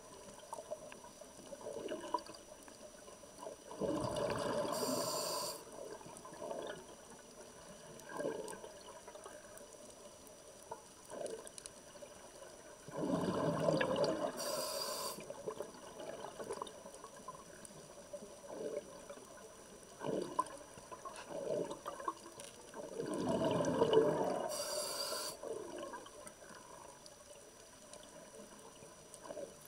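Scuba diver breathing through a regulator, heard underwater: three breaths about ten seconds apart, each a rush of exhaled bubbles with a brief hiss. Faint clicks in between.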